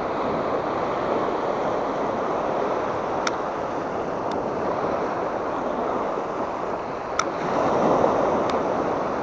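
Small surf breaking and washing up a sand beach: a steady rush that swells near the end as a wave runs in. A few faint sharp clicks sound over it.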